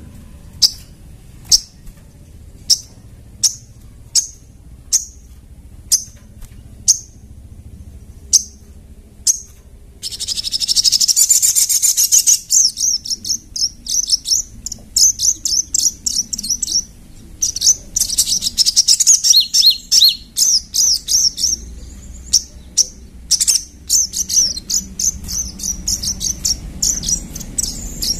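Sogon (sogok ontong) songbird calling: single sharp high chirps at about one and a half a second for the first ten seconds, then a fast, high twittering song in rapid runs, with a brief lull about two thirds of the way through.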